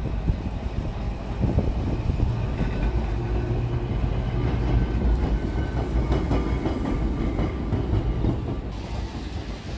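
Blackpool's illuminated heritage tram, styled as a steam locomotive and carriage, running past close by: a low rumble of steel wheels on the rails with scattered clicks over the track, loudest as it passes in the middle and easing off near the end.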